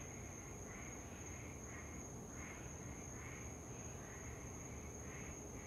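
Faint rasping animal calls repeating about twice a second over a low steady hum.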